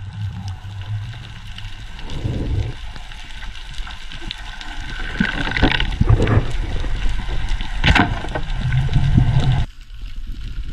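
Water sloshing and gurgling over a low rumble, with scattered clicks; the sound changes abruptly shortly before the end.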